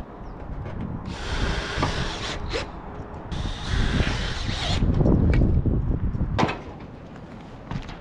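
Cordless drill driving roofing screws through corrugated tin roofing sheets, two runs of about a second and a half each, with wind rumbling on the microphone; a few sharp clicks near the end.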